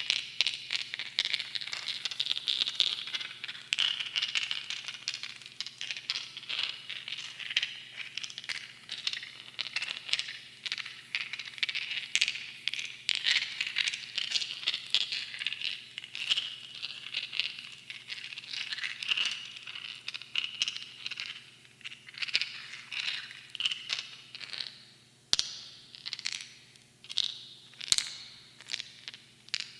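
Small mineral stones clinking and rattling against one another in a dense stream of light clicks, thinning to separate clicks near the end.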